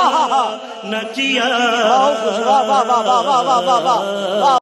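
A man singing a devotional-style chant in a wavering, ornamented melody with quick rises and falls in pitch, over a steady held tone that comes in about a second in. It cuts off abruptly at the end.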